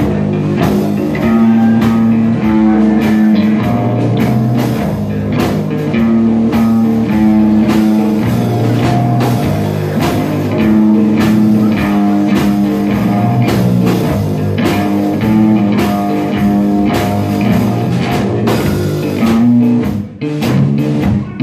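Three-piece rock band playing live: electric guitar, bass guitar and drum kit.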